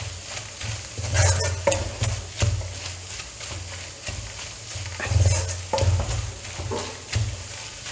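A spoon stirring and scraping a thick masala of onion, tomato and chilli, coriander and turmeric powders as it fries in a kadai, with a faint sizzle under it. The strokes are irregular, about one a second: the spice powders are being fried until their raw smell is gone.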